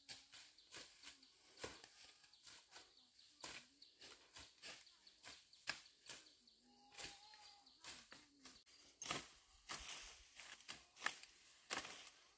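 Faint, irregular rustling and crackling, many short clicks at uneven spacing, with a faint brief call about seven seconds in.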